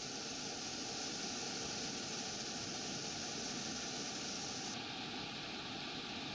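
Muddy floodwater rushing steadily over rocks in a stream swollen by heavy rain.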